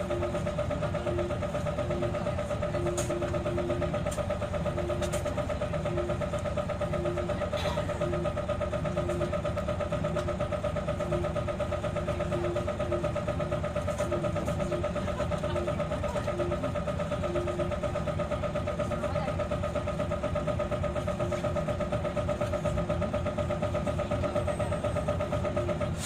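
Isuzu Erga city bus engine running steadily at an even pitch, heard from inside the bus, with a constant hum. A fainter tone beeps on and off about once a second.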